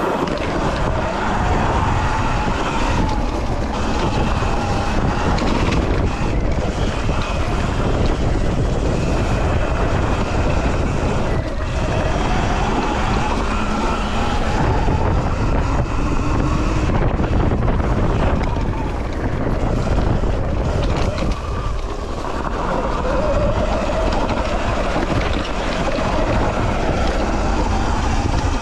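Heavy wind buffeting on the microphone while riding a Sur Ron X electric dirt bike. Underneath, the electric motor's whine rises and falls faintly as the throttle changes.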